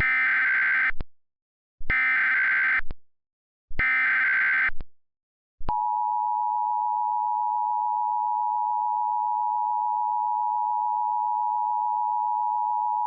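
Emergency Alert System tones: three one-second bursts of the SAME header data, then the steady two-tone EAS attention signal starting about six seconds in and holding on.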